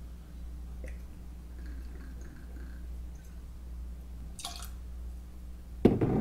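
White rum trickling faintly from a bottle's pour spout into a metal jigger, then the jigger tipped into a mixing glass near the end with a short splash, the loudest sound. A steady low hum runs underneath.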